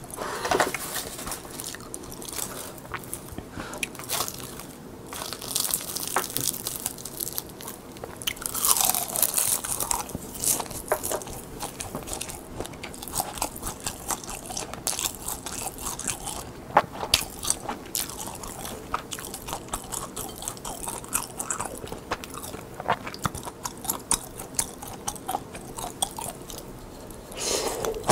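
Close-miked crunching and chewing of crisp seasoned gim (Korean roasted laver sheets), with many small sharp crackles as the sheets are bitten.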